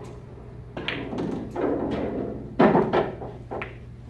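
Several knocks and thuds around a pool table, the loudest about two and a half seconds in, from pool balls and a cue knocking during play.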